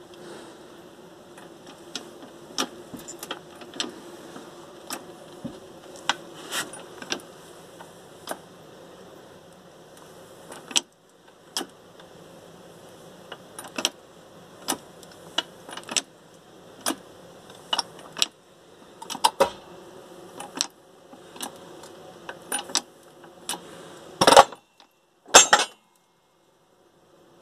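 Wheel hub being pressed apart on a homemade hydraulic press, with sharp metal clicks and ticks at irregular intervals over a steady buzzing hum. Near the end come two loud metallic bangs as the shaft breaks loose in the hub.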